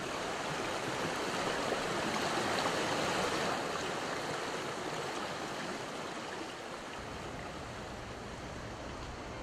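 River water flowing, a steady rush that swells a little in the first few seconds and then eases.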